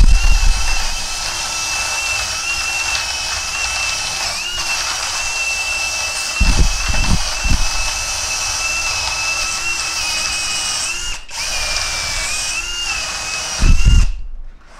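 Mensela ED-LX2 cordless drill-driver running at low speed with a cleaning brush in its chuck, scrubbing the keys of a mechanical keyboard. Its motor gives a steady whine, broken by a few loud low knocks, and it stops just before the end.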